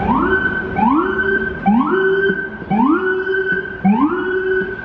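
Electronic siren sounding a repeated rising whoop, five in a row about a second apart, each sweeping quickly up in pitch and holding before the next starts, over faint street noise.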